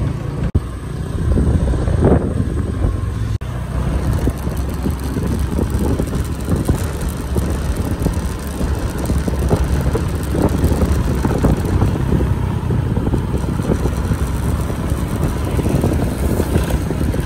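Steady low rumble of motor vehicle noise, with no speech over it.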